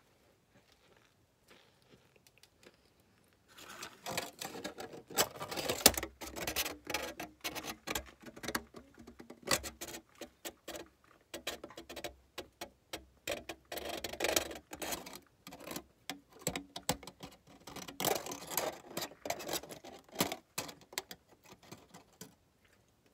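Aluminium foil holding cornstarch chunks being crinkled and squeezed close to the microphone. Dense, rapid crackling starts a few seconds in and comes in waves, stopping shortly before the end.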